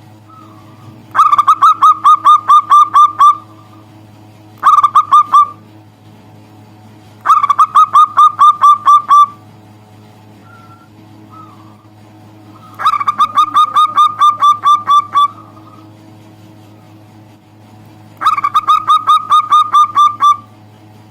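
Zebra dove (perkutut) calling: five bouts of quick, evenly repeated notes, about five a second, each bout lasting one to two seconds with pauses between, over a faint steady low hum.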